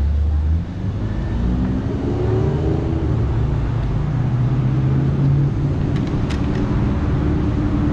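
Street traffic: a motor vehicle's engine running close by, rising in pitch as it speeds up a second or two in, then holding steady over a constant road rumble.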